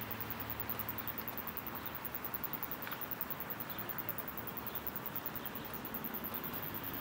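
Steady outdoor background hiss with a faint low hum underneath, and no distinct event standing out.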